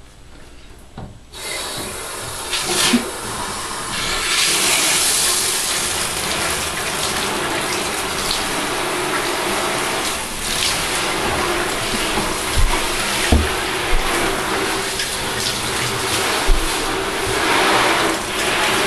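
Water running from a handheld shower sprayer into a bathtub, splashing over a wet pug. It comes on suddenly about a second in and grows louder a few seconds later, with a few soft low bumps in the tub.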